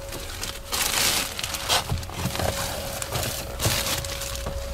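Clear plastic protective film on a truck cab seat crinkling and rustling in irregular bursts as a person slides across it. A few knocks are heard, and a faint steady tone sounds underneath.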